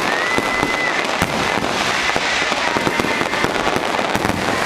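Fireworks going off in rapid succession, a dense run of bangs and crackles, with a high whistle held for about a second near the start.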